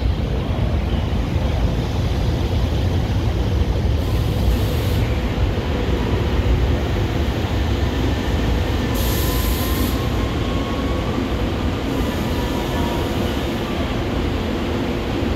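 SEPTA Silverliner IV electric commuter train pulling into the station, its cars rolling past close by with a steady rumble of wheels on rail and a faint whine. Two short hissing bursts break in about 4 and 9 seconds in.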